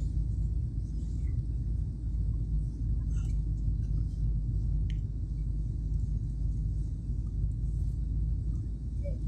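Steady low rumble of a jet airliner in flight, engine and airflow noise heard inside the passenger cabin.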